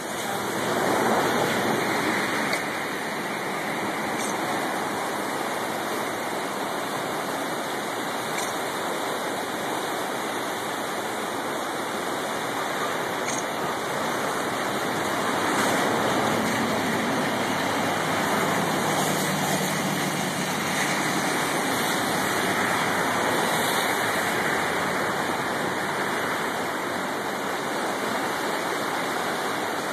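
Clackamas River running high near flood stage: the fast, swollen water rushing steadily.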